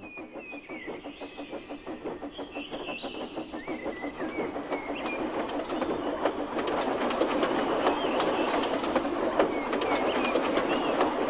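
Small steam tank engine puffing steadily with a train of wagons clattering behind it, its fast, even beat getting louder as it approaches. Birds chirp throughout.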